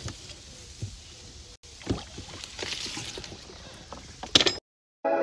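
A wooden rowing boat being rowed: oars dipping and splashing in the water, with scattered sharp knocks of the oars, loudest near the end. It cuts to a moment of silence, then music starts.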